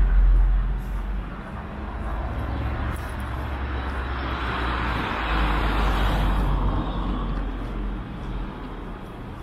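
Street traffic: a deep car rumble close by at the start, then the tyre noise of another car swelling and fading as it passes about halfway through.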